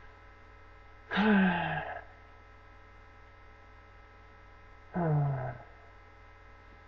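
A man's voice making two short wordless sounds that fall in pitch, about a second in and again about five seconds in, over a steady electrical mains hum.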